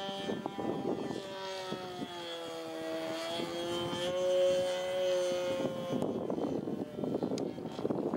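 Irvine 53 two-stroke nitro glow engine of a radio-controlled Sbach 342 aerobatic model plane flying overhead, a steady propeller drone. Its pitch falls over the first two seconds, holds, then steps up a little around the middle. About six seconds in it fades under a rough rushing noise.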